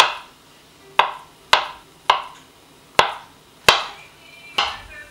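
Kitchen knife cutting down through a cooked chicken breast onto a cutting board: seven sharp knocks about half a second to a second apart, each with a short ring.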